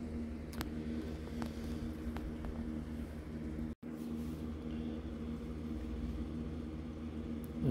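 Steady low machine hum in the room, with a few faint clicks in the first half. The sound cuts out for an instant a little before halfway.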